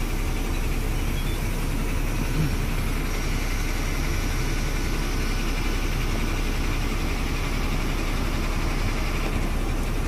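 Samsung air purifier's fan running steadily, a constant even rush of air with a low hum underneath.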